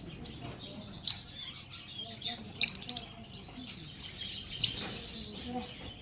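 Many caged pet birds, among them cockatiels and lovebirds, chirping and twittering at once. A single sharp, loud note sounds about a second in, and a quick run of rapid chirps comes a little before halfway.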